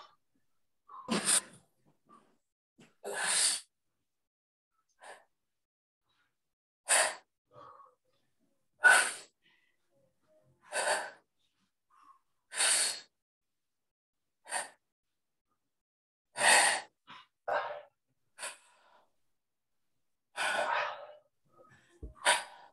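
A person breathing out sharply and forcefully, about once every two seconds, in time with the reps of jackknife crunches.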